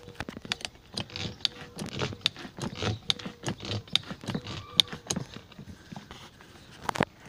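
Footsteps and rustling tomato foliage as a sprayer lance is carried through the rows: a quick, irregular run of small clicks and taps, about three or four a second, with a sharper knock near the end.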